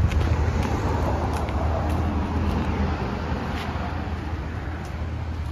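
Side-by-side UTV engine idling with a steady low hum, easing slightly quieter toward the end.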